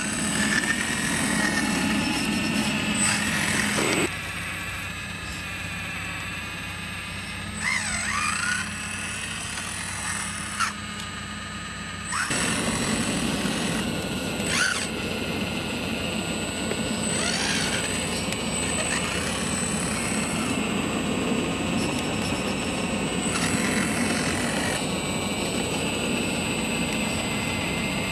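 JD360 scale RC hydraulic excavator running and digging: a steady mechanical hum made of several held tones. It drops quieter for about eight seconds from four seconds in, then comes back, with short rising-and-falling squeals as the arm and bucket move.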